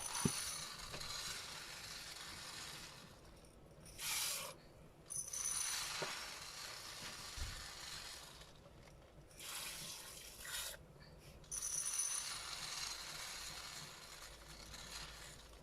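Kitchen sounds: water running in stretches of a few seconds that stop and start again, with a few clinks and knocks of utensils.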